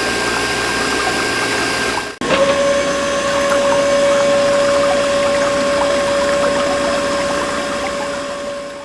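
Small DC motor of a mini water pump running with a steady whine over the rush of water. A break about two seconds in, after which the whine is lower and steadier.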